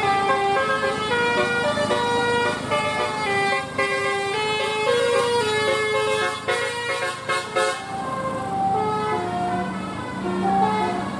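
Bus 'telolet basuri' multi-tone melody horn playing a tune, its notes stepping up and down in quick succession. A steady low tone comes in about two-thirds of the way through.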